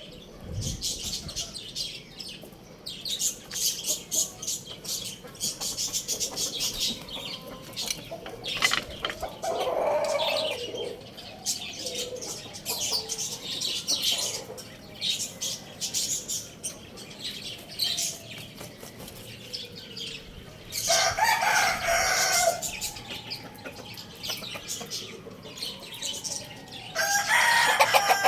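A rooster crowing, one long crow about two-thirds of the way through and another starting near the end, with shorter clucking calls between. Small birds chirp constantly underneath.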